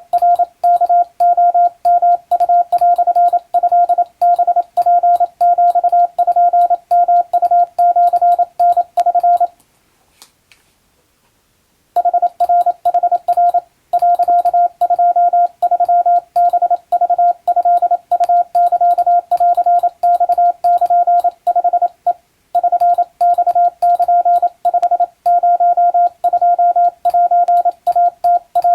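Wabun (Japanese kana) Morse code sent as a keyed audio tone: a single steady-pitched beep switched on and off in quick dots and dashes, a telegram being sent for receiving practice. The sending pauses for about two seconds around ten seconds in, then resumes.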